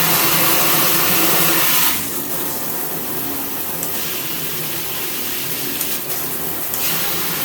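Water spraying hard from a handheld shower head, a steady hiss. Its sound changes about two seconds in, and again twice later, as the spray settings are switched.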